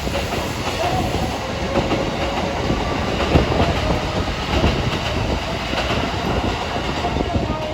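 Electric commuter train running along the track, its wheels clacking over the rail joints with a steady running rumble.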